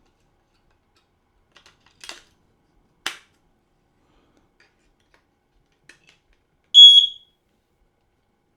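A few faint plastic clicks and a sharper snap as the batteries go back into a carbon monoxide alarm. Near the end the alarm gives one short, loud, high-pitched beep, its chirp on powering up with the batteries in.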